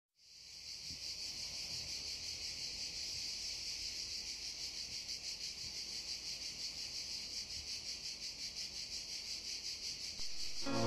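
Cicadas singing in a steady high buzz with a fast, even pulsing, fading in at the start. Music comes in at the very end.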